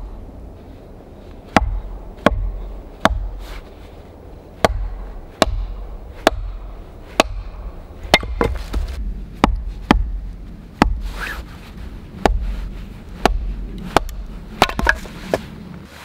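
Hatchet splitting firewood: the blade, set in a piece of wood, is struck down onto a wooden stump again and again. Each blow is a sharp knock with a dull thud, about one every three-quarters of a second.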